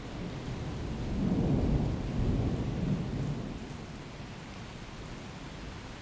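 Thunder rumbling over steady rain; the rumble swells about a second in and fades away after about three seconds, leaving the rain.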